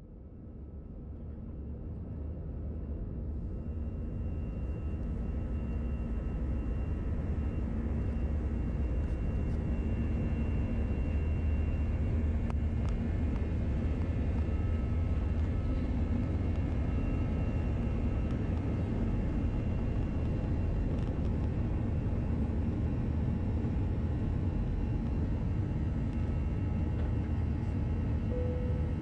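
Airbus A321-211 jet engines (CFM56) at takeoff thrust, heard inside the cabin from a window seat over the wing, together with the rumble of the takeoff roll. A steady deep rumble with a faint whine on top grows louder over the first few seconds, then holds through lift-off and the early climb.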